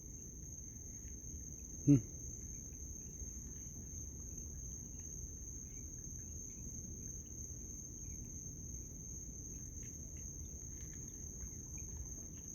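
Crickets trilling in one steady, unbroken high tone, with a single short, low voiced sound about two seconds in.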